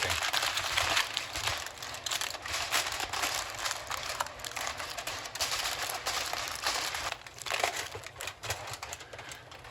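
Aluminium foil crinkling and crackling as it is pressed and crimped tightly over the rim of a high-walled sheet pan to seal it for steaming.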